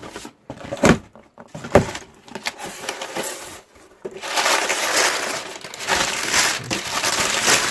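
A cardboard shipping box being forced open by hand: a few sharp knocks and scrapes, then from about four seconds in a long stretch of tearing and crunching cardboard.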